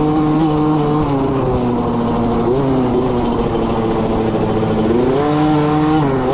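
Small youth dirt bike's engine running hard under the rider, one steady pitch that drops about a second in, then climbs and falls with the throttle twice.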